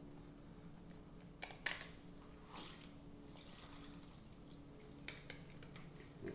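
Lemon halves pressed in a hand-held lemon squeezer: faint squeezing sounds and a few short clicks, the loudest a little under two seconds in.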